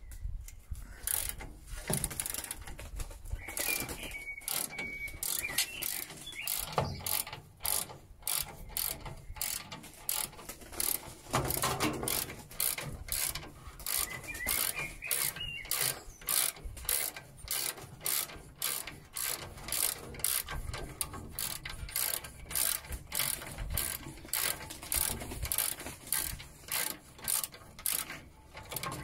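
Ratchet spanner clicking in repeated back-and-forth strokes as it undoes a bolt holding the rear chassis cross member.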